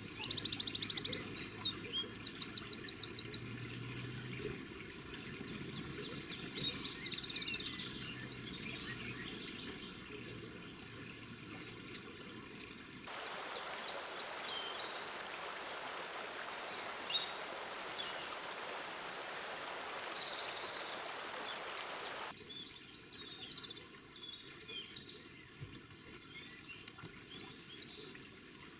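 Birds calling, loudest near the start with quick trains of sharp, high notes, then scattered chirps. From about a third of the way in until roughly three-quarters, flowing river water rushes steadily under the calls.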